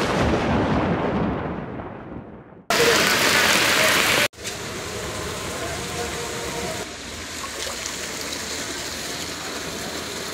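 Heavy rain pouring onto a flooded street, a loud hiss that fades over the first couple of seconds. It cuts abruptly to a louder burst of rain for about a second and a half, then settles into steady, quieter rain.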